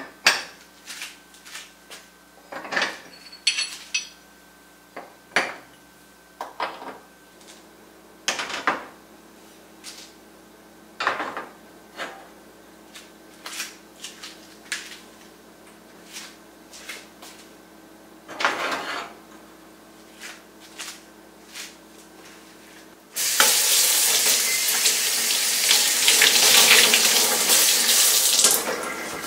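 Metal burner caps and stove grates being set back onto a gas cooktop: a string of sharp clinks and clatters, about one every second or two. About 23 seconds in, a kitchen faucet opens and runs into a stainless steel sink, a steady rush of water much louder than the clinks.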